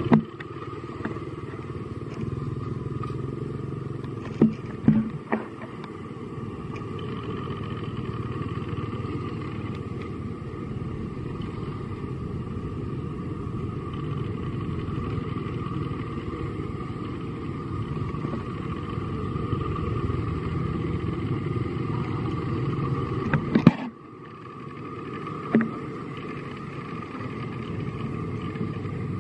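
Steady low background rumble with a faint even hum above it, broken by a few short knocks; the rumble drops away suddenly near the end and builds back.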